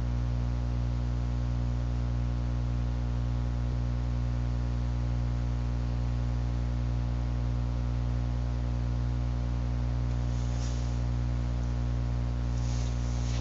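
Steady electrical mains hum with a stack of even overtones, unchanging throughout, with two faint short hisses near the end.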